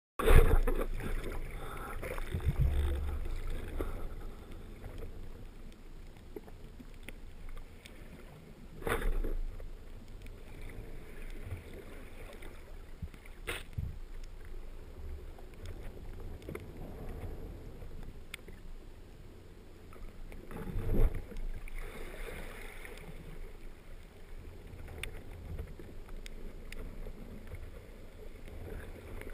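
Rough, shallow sea heard underwater through an action-camera housing: a low, muffled rush of surge and churning water, loudest as it begins and swelling twice more, about a third and two-thirds of the way in, with a single sharp click between the swells.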